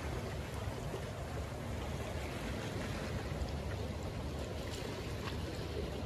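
Small waves of a calm sea lapping and trickling among the rocks of a breakwater: a steady wash of water with faint scattered splashes over a low rumble.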